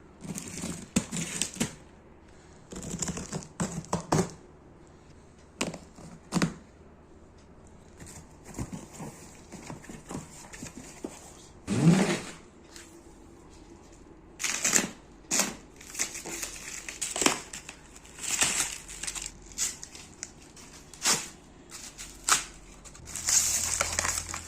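Cardboard box being unpacked and its contents handled: irregular rustling, crinkling and scraping with scattered knocks, the loudest about halfway through.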